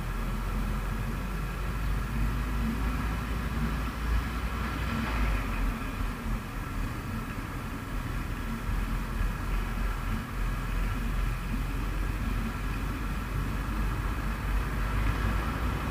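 Motorcycle riding in slow city traffic: a steady low rumble of wind and road noise with the drone of the engine, and no sharp events.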